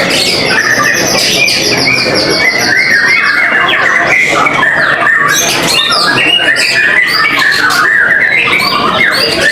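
Several white-rumped shamas (murai batu) singing at once in loud, overlapping phrases, with a fast run of repeated high notes in the first three seconds.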